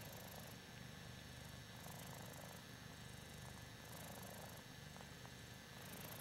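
Ragdoll cat purring softly and steadily, the purr swelling and easing in a slow rhythm.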